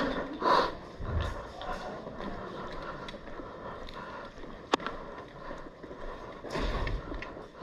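Airsoft gunfire and BB hits: scattered sharp clicks and pops, with one louder crack a little past halfway, over a noisy background and a low rumble near the end.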